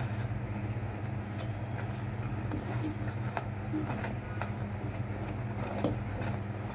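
Silicone spatula stirring milk in an aluminium pot, scraping and tapping the pot now and then, over a steady low hum.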